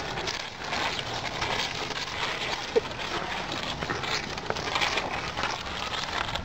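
Wet, sticky mud squelching and sucking around a mud-clogged mountain bike and the rider's feet as he struggles, stuck and sinking in it, with hard breathing mixed in. There is a brief squeak about three seconds in.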